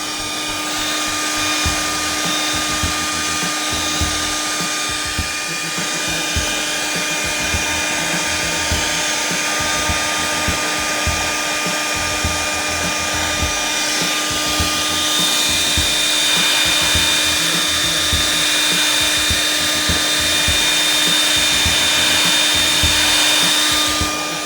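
Handheld hair dryer running steadily: a loud rush of air over a motor whine. The whine's tone shifts slightly about two-thirds of the way through.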